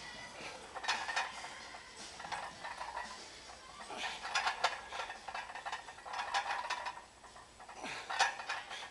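Weight plates rattling and clinking on a loaded barbell with each squat rep, in bursts of metal clatter every two to three seconds.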